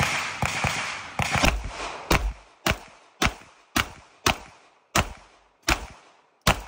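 A handgun fired in a string of about a dozen shots: a quick cluster in the first second and a half, then a steady pace of about two shots a second. Each shot echoes briefly and fades.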